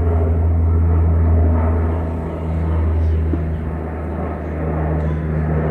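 Twin-engine turboprop airliner climbing out after takeoff, its propellers and engines making a loud, steady low drone.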